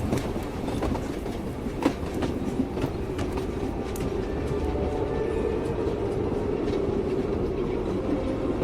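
Train wheels running on rails: a steady low rumble of the moving carriage, broken by occasional sharp clicks as the wheels pass over rail joints.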